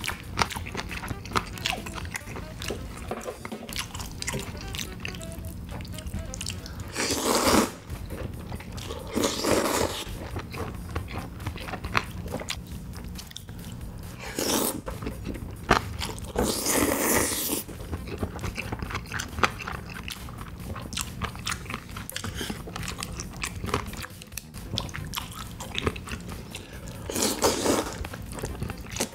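Close-up eating sounds: spaghetti in cream sauce slurped up with chopsticks in about five long, loud draws, with wet chewing and small mouth clicks in between.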